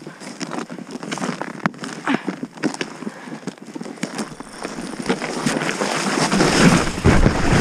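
Sled sliding down a snowy hill: irregular scrapes and bumps of the runner surface over the snow, then wind rushing over the microphone, building from about halfway through as the sled picks up speed.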